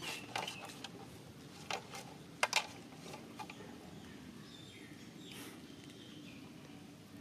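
Outdoor background hum with a handful of sharp clicks in the first three seconds, the loudest a close pair about two and a half seconds in, and faint high chirps later.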